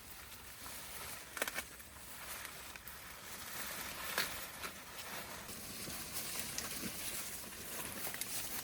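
Outdoor background hiss with a few short, sharp clicks or rustles, the clearest about a second and a half in and about four seconds in.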